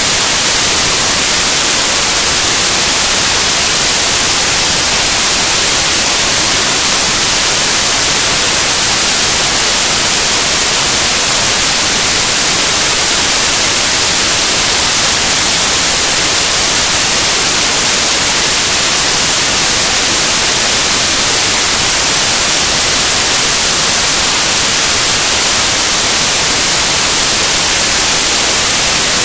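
Loud, steady hiss like static or white noise, unchanging throughout, heaviest in the high range.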